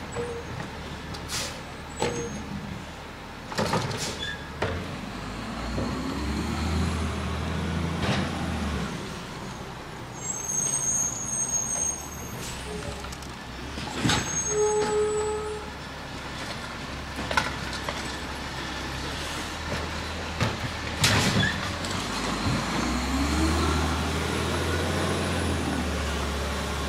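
Garbage truck collecting yard waste: its engine revs up for a few seconds twice, with several sharp air-brake hisses between.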